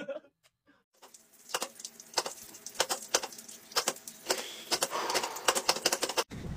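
Shower running: an even hiss of spray with an irregular patter of drops and clicks, starting about a second in and cutting off suddenly near the end.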